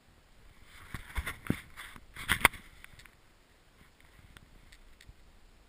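Skis and ski pole shuffling on snow: a scraping rustle with several sharp knocks, loudest about two and a half seconds in, then a few faint clicks.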